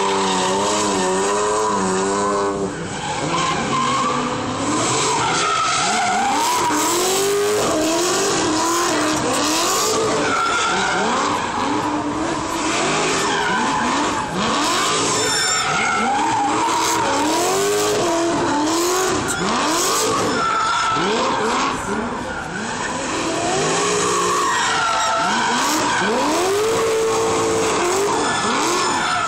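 Drift cars sliding under full throttle, engines revving up and down again and again over a continuous screech of spinning, sliding tyres.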